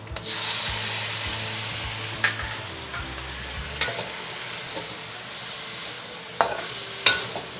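Sauce poured into a hot carbon steel wok of ground pork and green beans, setting off a sudden loud sizzle that slowly dies down. A metal wok ladle stirs through the food, with a few sharp clicks against the wok.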